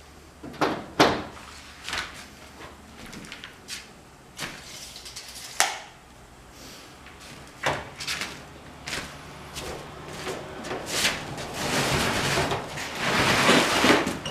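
Scattered knocks and clicks of someone handling wooden furniture and things and walking on a plastic drop sheet over a wooden floor, followed in the last few seconds by a longer, louder scraping rustle.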